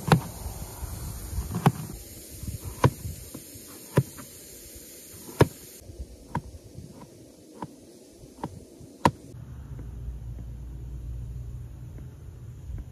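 Kitchen knife chopping winter melon on a plastic cutting board: about ten sharp knocks at uneven spacing, roughly one a second, stopping about nine seconds in, over a steady low rumble.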